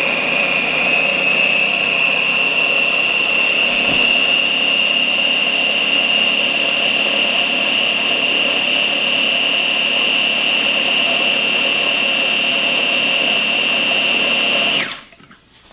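Small electric food chopper running continuously, blending black beans, onion and garlic into hummus: a steady motor whine whose pitch creeps slightly higher. It cuts off suddenly near the end.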